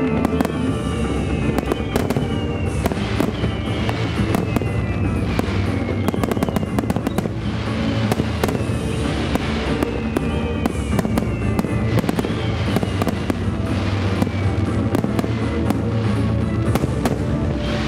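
Fireworks shells bursting and crackling in a rapid starmine barrage, many reports a second, over loud music from loudspeakers.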